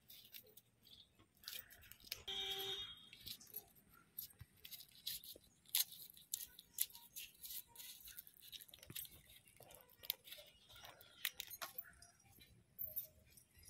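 Dry papery skins of garlic cloves crackling and clicking faintly as they are peeled by hand, in scattered small ticks. A brief pitched call sounds once about two seconds in.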